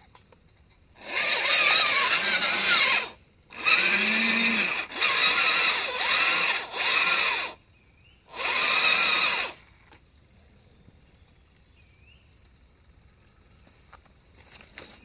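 The MN99S RC Land Rover Defender's electric motor and geared drivetrain whine in five bursts of throttle, the pitch rising and falling with each one, as the truck struggles stuck in a muddy rut. After about ten seconds it goes quiet.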